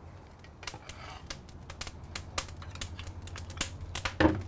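Irregular sharp clicks and crackles at a hot kamado grill as glazed pork shanks are laid on the grate with metal tongs, with one louder knock near the end.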